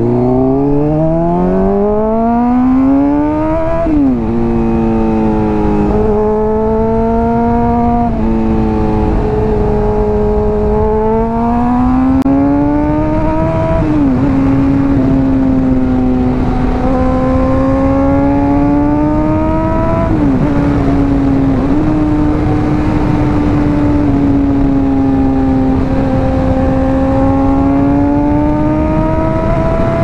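Honda CBR600RR's inline-four running through a Hotbodies Stinger slip-on exhaust, revving up steeply under hard acceleration and dropping sharply at an upshift about four seconds in. After that the revs rise and fall gently, with further quick shifts about halfway and two-thirds of the way through. Steady wind rush is heard from the rider's helmet throughout.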